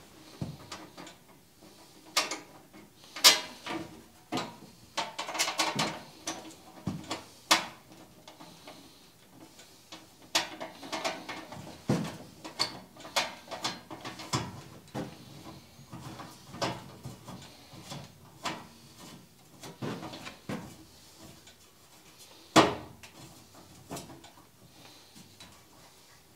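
Irregular knocks, clicks and short clatters of objects being handled and set down on a wooden workbench, with the sharpest knocks about three seconds in and again near the end.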